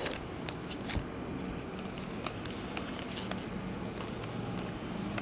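Faint handling noise of glossy Bowman Chrome baseball cards being sorted by hand: a few light clicks and slides as the cards are flicked through, over a steady room hiss.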